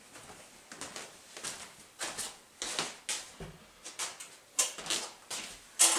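Handling noise as a homemade electric bass built from a metal ammo case is picked up and moved: a string of irregular knocks, rustles and light clatters, with the loudest knock near the end. No notes are played.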